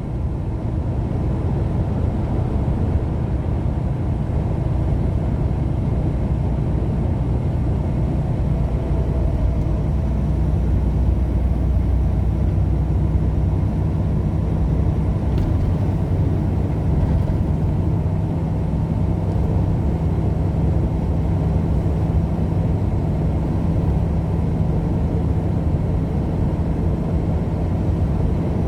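Steady low road rumble and engine drone of a car driving at a constant speed.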